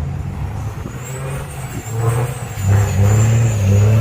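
Diesel pickup truck engine pulling under load, getting louder about two and a half seconds in as more throttle is given, with a thin high whine wavering above it.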